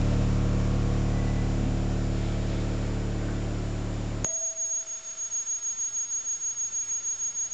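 Live electronic music played over a hall's PA: a dense, steady low drone chord that cuts off suddenly about four seconds in, giving way to a thin high steady tone over a quieter tone that pulses about four times a second.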